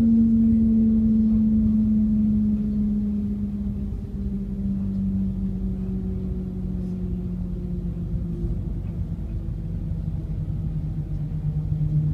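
Shanghai Transrapid maglev train heard from inside the cabin: a steady hum whose pitch slowly falls throughout, over a low rumble, as the train slows.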